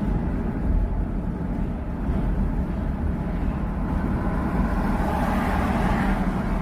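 Steady road and engine rumble of a car being driven, recorded by a dashcam. A wash of higher noise swells up about two-thirds of the way through and eases off near the end.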